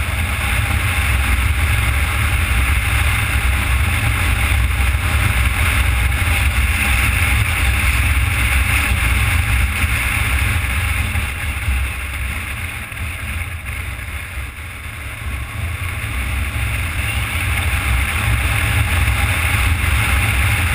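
Motorcycle riding along at speed: wind rushing and buffeting over the mounted camera's microphone, with the engine running underneath. The noise eases off for a few seconds a little past halfway, then builds again.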